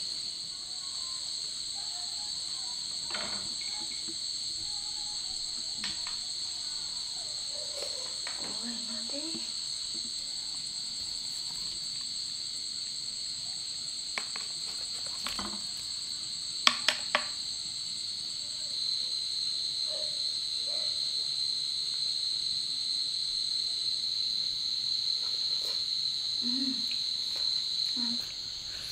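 Steady, high-pitched insect chorus, two continuous shrill tones held throughout, a little louder in the last third. A few sharp clicks or taps are heard over it, the loudest three in quick succession just past the middle.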